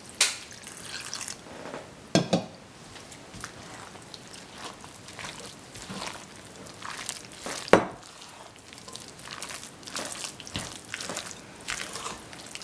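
Water poured from a glass cup into a glass bowl of thick, chunky fritter batter, then a wooden spoon stirring and squishing the wet mix. A few sharp knocks stand out, the loudest a bit over halfway through.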